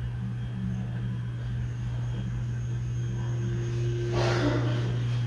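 Ventisol Fênix ceiling fan running in exhaust mode, a steady low motor hum with a slight pulsing. A brief burst of noise comes a little after four seconds in.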